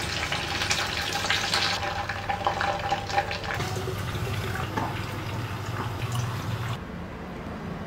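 Hot oil bubbling and crackling, with a dense patter of small pops, as chicken pieces deep-fry in a pot. It stops abruptly near the end, leaving a faint hiss.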